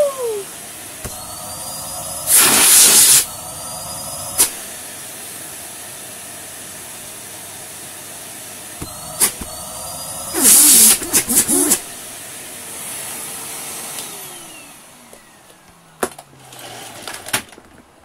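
Numatic Henry HVR160 vacuum cleaner with a newly replaced motor, switched on for a test run: the motor spins up to a steady whine, with two loud bursts of rushing air and a few clicks. About fourteen seconds in it is switched off and the whine falls away in pitch as the motor winds down.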